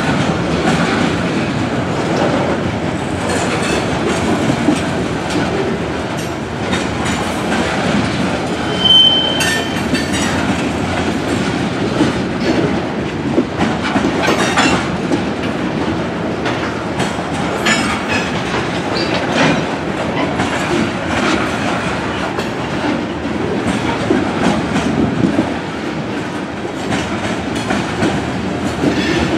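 Freight train of covered hopper cars rolling past, wheels clicking steadily over the rail joints. A short high squeal comes about nine seconds in.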